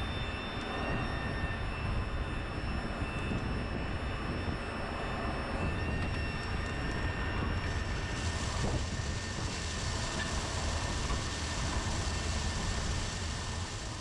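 John Deere 6R 215 tractor running steadily under load while pulling a no-till drill: a continuous engine drone with several steady high whines over it. A brighter hiss joins in about eight seconds in.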